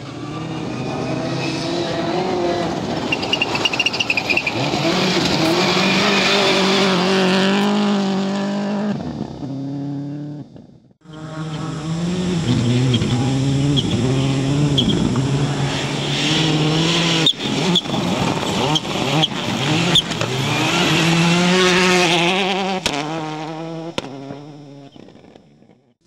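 A Subaru Impreza WRC rally car drives past on gravel, its engine revving high through gear changes, getting louder and then fading. After a sudden cut about eleven seconds in, a Škoda rally car makes the same kind of pass, with a few sharp cracks in the middle of its run.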